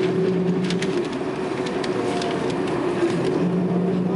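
Airbus A300 jet engines at idle, heard from inside the passenger cabin as the airliner taxis: a steady hum with a few light clicks.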